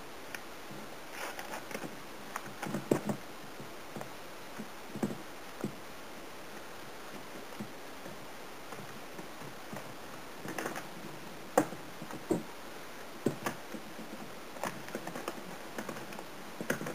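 Hands mixing and kneading pizza dough in a stainless steel bowl, working flour and warm water into a stiff dough: irregular soft taps and pats, a few sharper clicks, in no steady rhythm.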